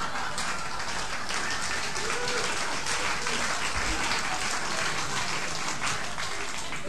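Theatre audience applauding after a punchline, the clapping dying away near the end.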